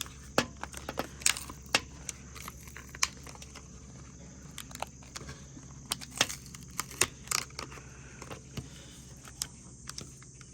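Stiff plastic blister packaging being handled and pulled open, giving scattered irregular clicks, crackles and crinkles.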